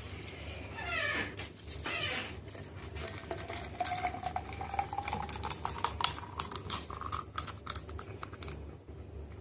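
Thick blended smoothie poured from a blender jug into a glass: spattering and clinking, with a tone that rises slowly as the glass fills, from about three and a half seconds in until near the end.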